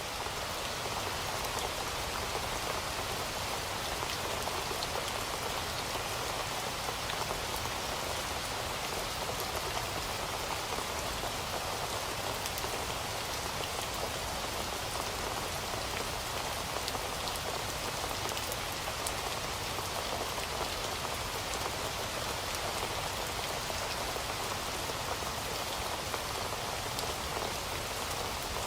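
Steady rain falling, an even hiss with faint drop ticks through it.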